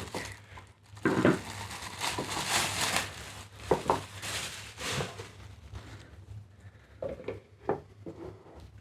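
Handling noise while unboxing a tabletop fountain: a couple of seconds of packaging rustling and crackling, then several light knocks and clinks as the pieces are handled and set down.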